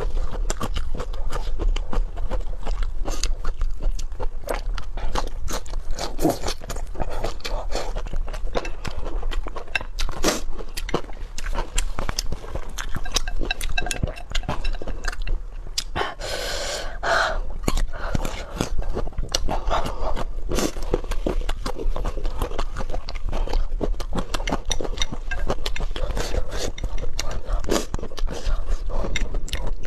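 A person eating, with close-up chewing and crunching and scraping clicks. About halfway through there is a brief pitched sound.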